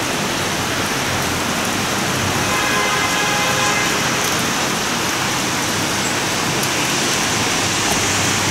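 Steady rain falling on the street and rooftops, an even hiss with no break.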